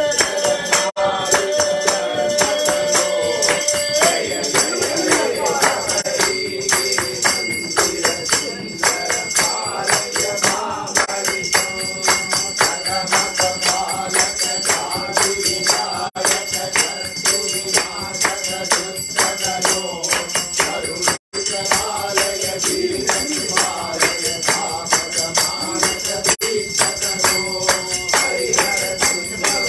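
Devotional bhajan singing with jingling hand percussion, tambourine-like, keeping a steady beat throughout. A single tone is held for the first few seconds, and the sound cuts out for a moment about two-thirds of the way through.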